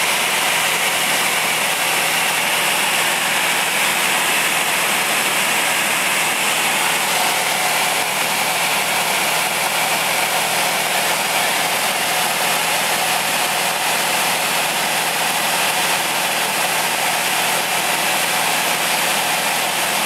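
Steady engine drone and rushing air heard inside the cabin of a light aircraft, holding an even level throughout.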